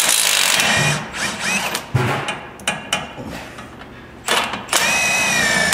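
Compact cordless impact wrench run in three bursts on a front-suspension nut, the last burst longer with a high whine.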